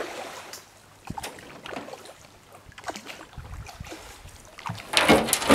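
Canoe being paddled in close to shore: faint paddle-in-water sounds and scattered small knocks on the hull, then, near the end, a loud scraping rush as the bow runs up onto the leaf-covered bank.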